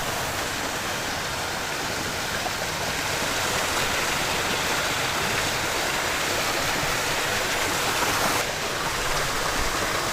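Steady rushing noise with no clear rhythm or tone, changing slightly about eight and a half seconds in.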